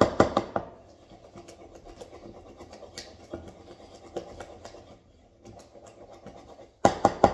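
Mashed banana being beaten by hand in a bowl for pancake batter, already mushy and near liquid: quick knocks of the utensil against the bowl, about six a second. It eases into softer scraping and stirring, then the fast knocking starts again near the end.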